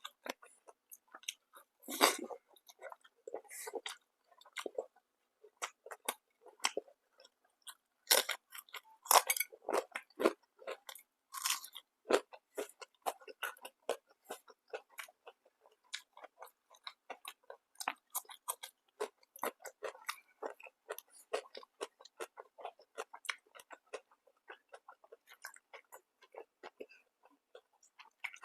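A person chewing and biting food close to the microphone: a steady run of small wet clicks, with louder crunching bites about two seconds in and again around eight to eleven seconds in.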